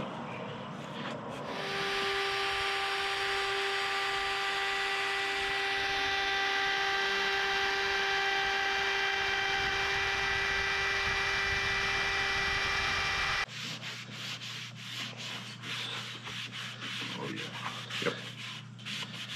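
Wood router running with a steady high whine as it trims a maple-topped guitar body to a template; it stops abruptly about 13 seconds in. After that come quieter rubbing and scraping sounds on the wood over a low hum.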